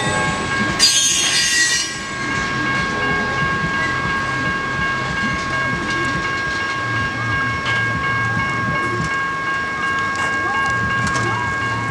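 Railroad crossing warning bell ringing steadily while the tail of a CSX train rolls away over the rails; a loud hiss of wheel noise in the first two seconds, then the bell and a low rumble.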